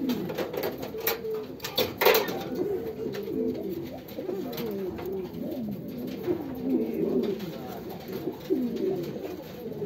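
Many domestic pigeons in a loft cooing over one another, a continuous overlapping chorus of wavering coos. A few sharp clicks or knocks come in about one to two seconds in, the loudest near two seconds.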